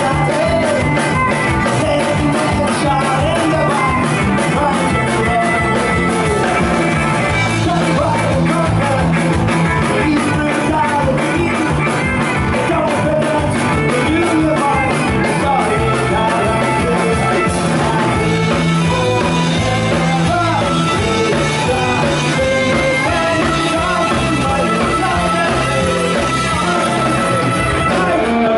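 Live folk-punk band playing loud and steady: fiddle, acoustic guitars, bass guitar and a drum kit keeping a driving beat, with a male lead vocal sung over them.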